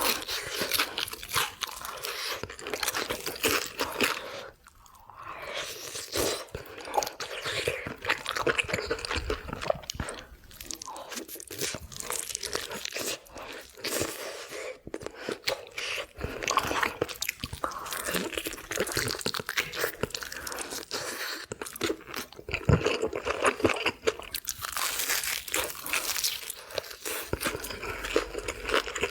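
Crunching bites and chewing of crispy fried chicken, close to the microphone, with a brief lull about five seconds in.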